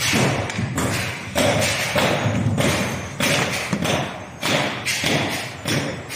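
PP hollow-sheet flexo printing and rotary die-cutting machine running, with a sharp thump repeating evenly about every 0.6 s as each sheet is fed through and cut.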